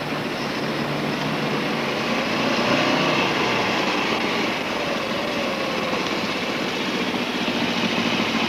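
A motor vehicle engine running steadily close by, coming in abruptly at the start.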